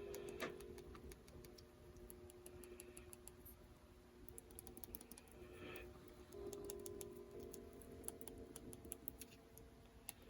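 Near silence: a faint steady hum with scattered faint ticks.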